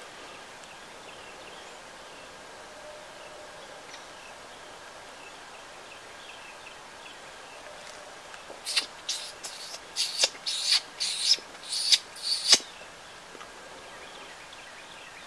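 Faint steady outdoor background, then in the second half a quick run of about eight short, hissy noises close to the microphone, each a fraction of a second long.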